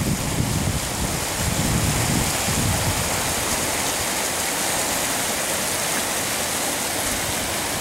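Flash floodwater rushing down a desert wash: a steady, even rush of running water. Low gusts of wind buffet the microphone for the first two to three seconds, then die away.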